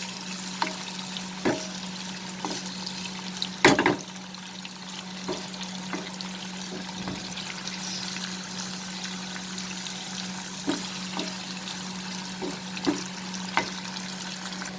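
Prawns sizzling steadily as they fry in hot mustard oil in a kadhai, with scattered clicks of stirring and one louder scrape just under four seconds in.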